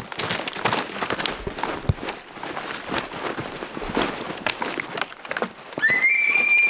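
Quick footsteps crashing through brush and deadfall, with branches snapping and pack gear rustling. About six seconds in, a loud, high elk bugle starts: a rising whistle that then holds steady.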